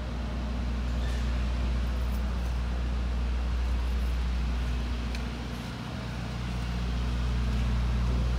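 Steady low mechanical hum made of several fixed low tones, with an even background of city noise; it eases a little about two-thirds of the way through.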